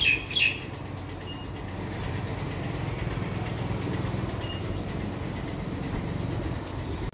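Fuel dispenser pumping diesel into a truck's steel fuel tank: a steady low mechanical hum with a rushing haze as the fuel flows.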